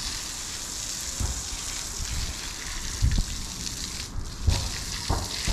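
Water from a garden hose spraying onto a wet concrete floor: a steady hiss and spatter that drops away briefly about four seconds in. A few low thumps sound through it.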